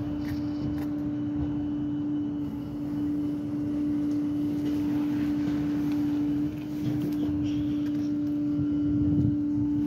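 Peterbilt garbage truck with a New Way body running, a steady one-pitch drone over a low rumble.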